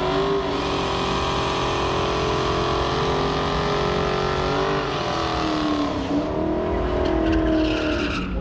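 Race car engine at high revs on a drag strip pass, its note climbing slowly, dropping sharply about five seconds in and again around six seconds, then climbing once more before fading near the end.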